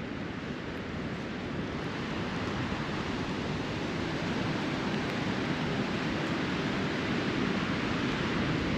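Storm wind blowing in a snowstorm, a steady rush that slowly grows louder.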